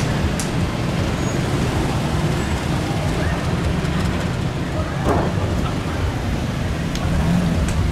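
Street traffic: a steady low rumble of vehicle engines and tyres, with a few faint clicks.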